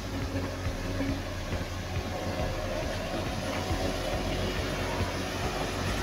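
Heavy vehicle engines running with a steady mechanical drone and low hum.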